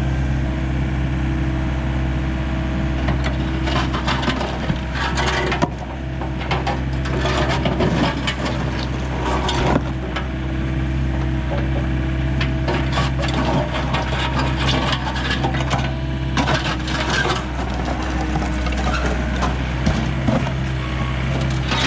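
A diesel excavator engine runs steadily throughout, under irregular scraping and crunching of material being dug and moved.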